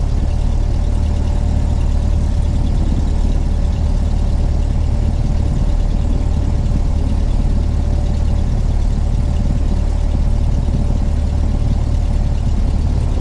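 Cockpit sound of a light single-engine Cessna's piston engine running at low taxi power: a steady, even drone, with a faint steady whine over it that stops near the end.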